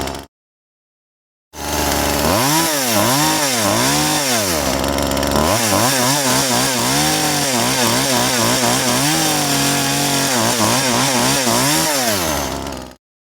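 Chainsaw engine running and being revved over and over, its pitch rising and falling in quick blips. A brief earlier sound cuts off at the start, there is a second and a half of silence, then the saw comes in already running, and it stops suddenly near the end.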